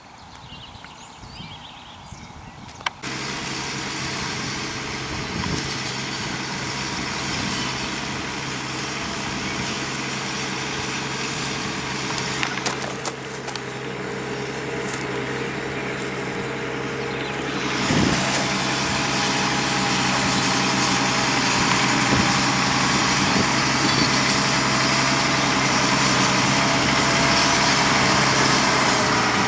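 Tractor engine running steadily while pulling a plough. It starts abruptly about three seconds in and gets louder again about eighteen seconds in.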